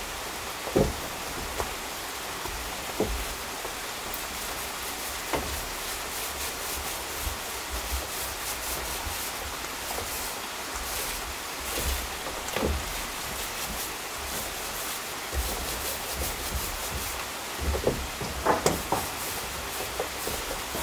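Paint roller rubbing back and forth over wooden floorboards, with a few light knocks, a small cluster near the end, over a steady hiss.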